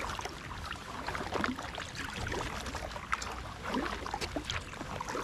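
Double-bladed kayak paddle strokes on calm water, alternating sides: small irregular splashes and drips as the blades dip in and lift out.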